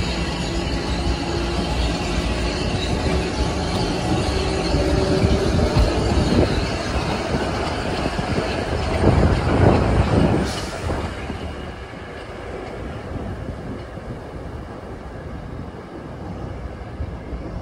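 Metro-North commuter train running past on the rails, loud for the first ten seconds or so and then dying away as it clears.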